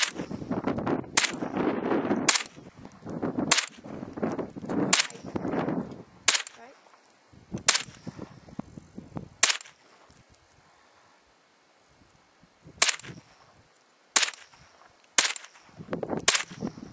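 Rifle shots: about a dozen sharp cracks, roughly one every second or so, with a pause of about three seconds after the eighth shot.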